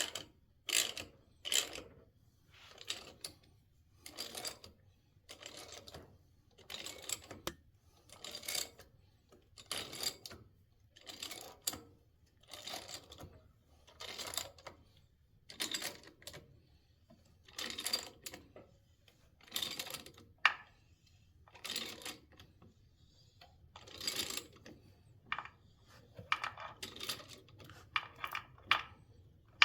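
Hand ratchet clicking in repeated short strokes, about one every second or so, as it tightens the engine compensator bolt toward 100 foot-pounds; the strokes come quicker near the end.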